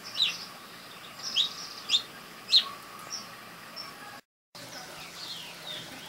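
Small songbirds chirping at a seed feeder: four sharp, short chirps that sweep downward in pitch in the first three seconds, then fainter chirps after the sound cuts out briefly about four seconds in.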